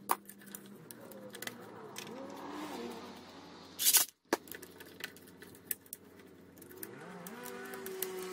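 Sharp clicks and rattles of the cut-off saw's plastic handle housing and wiring being handled during reassembly, with one short loud scrape about four seconds in. Faint music with sliding notes plays underneath.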